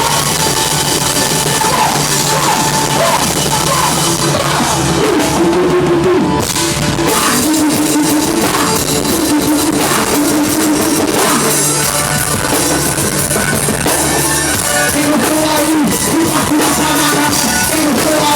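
A band playing loud, steady rock music with a drum kit.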